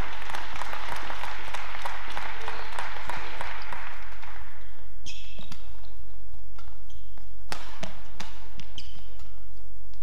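Crowd noise in a large hall dies away over the first four seconds or so. Then a badminton rally: sharp racket strikes on the shuttlecock and short squeaks of court shoes on the mat. A steady low hum lies underneath.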